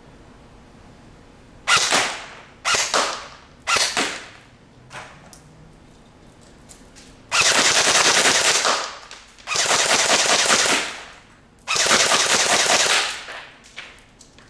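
A&K SG556 electric airsoft rifle firing: three short bursts, then three longer full-auto bursts of about a second and a half each.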